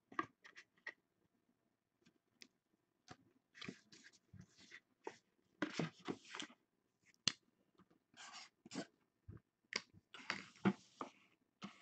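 Faint handling noise: scattered clicks, taps and short rustles as plastic card cases and a cardboard card box are set down, opened and shuffled, with denser rustling about halfway and again near the end.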